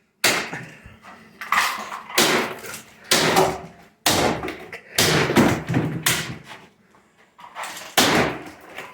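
A vacuum cleaner being smashed apart: about eight heavy blows, roughly one a second, each a sharp crack of impact on its casing with a short ring after it.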